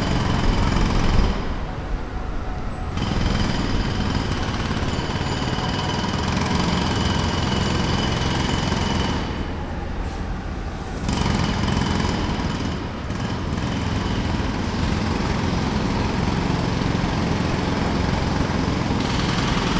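Jackhammer breaking pavement in a rapid, continuous hammering. It stops briefly twice, about a second in and again near the middle, while a low engine drone carries on underneath.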